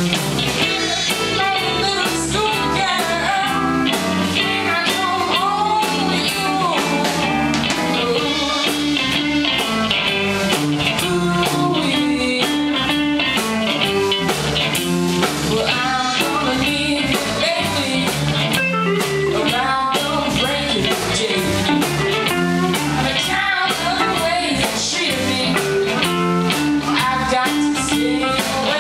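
Live blues-rock band playing loudly: electric guitars, electric bass and drum kit.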